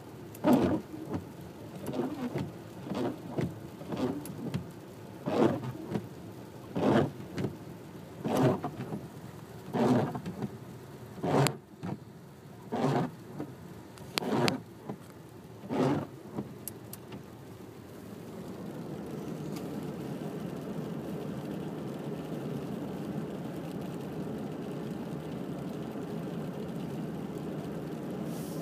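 Michelin wiper blades sweeping across a wet windshield, making a loud noise on each pass, about every one and a half seconds; the blades have turned noisy after three months of use. The wiping stops about sixteen seconds in, leaving a steady background hum.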